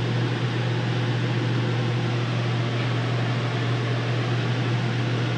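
RV air conditioner running: a steady low hum with an even fan rush of air.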